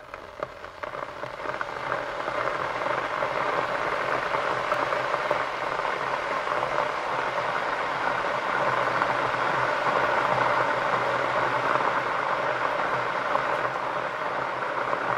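Electric kettle heating water toward the boil: a steady hiss that swells over the first few seconds and then holds, with a faint low hum underneath.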